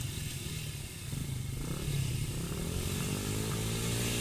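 Small pit bike engines idling, with one engine revved up in a slow rising climb from about a second and a half in, then held.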